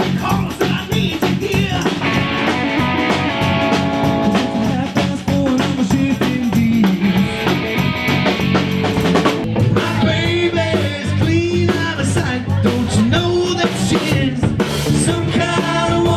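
Live rock band playing: drum kit, electric guitar and bass, with a man singing over it, mostly in the second half.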